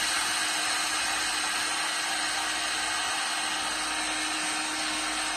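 Heat gun blowing steadily: an even rush of hot air with a faint constant hum underneath, shrinking thick glue-lined heat-shrink tubing.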